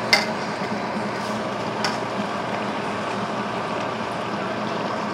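Salted fish and onions simmering in oil and liquid in a pan, a steady bubbling hiss. Two sharp clicks cut through it, one right at the start and one about two seconds in.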